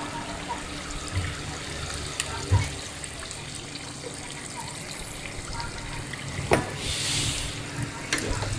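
Steady running or splashing water, with a few sharp knocks and a brief hiss about seven seconds in.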